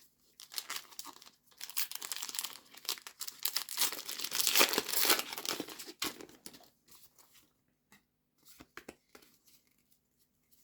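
Foil wrapper of a Pokémon TCG Paldea Evolved booster pack being torn open and crinkled, loudest about four to five seconds in, then a few faint ticks of cards being handled.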